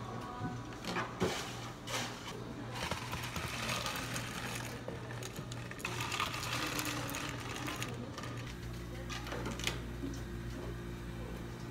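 Steady low hum of café equipment, with a few light clicks and knocks and a stretch of rustling hiss as drinks are handled and topped at the counter.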